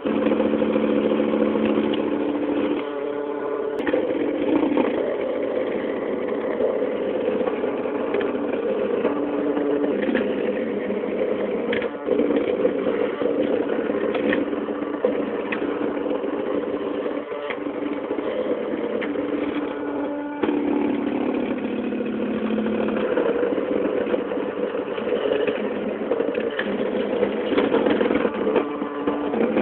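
Stepper motors of a CNC drawing machine running through its moves: a steady mechanical whine with pitched tones that switch on and off as the moves change, and a few light clicks.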